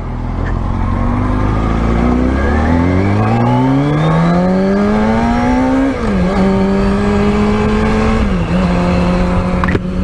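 Kawasaki ZX-6R's inline-four engine pulling away and accelerating gently, its pitch rising steadily for about six seconds. The pitch drops at an upshift and the engine then runs at a steady pitch, with a brief second dip near the end. The gentle pace reflects easing in new, slick tyres.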